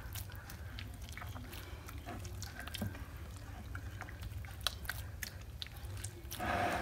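Butter being kneaded by hand in a plate of cold thyme water: irregular soft wet squishes and small clicks as the butter is worked to take up the thyme water for smen.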